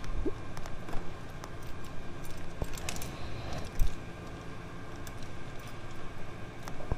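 Suzuki V-Strom V-twin idling quietly, with a few light clicks and knocks scattered over it.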